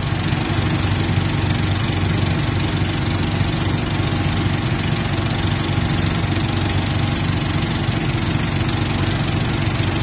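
A small motorboat's engine running steadily at constant speed: a loud, even low drone with a steady hiss above it.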